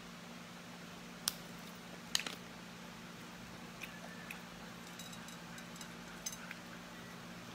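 Mussel shells clicking and cracking as they are handled and pried open by hand while eating, a few sharp clicks with the loudest about a second and two seconds in, over a steady low hum.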